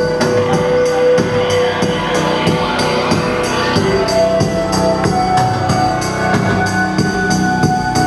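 Live electronic music from synthesizers and a drum machine: a steady beat with a regular bright percussion tick over held synth notes. The held note moves higher about halfway through.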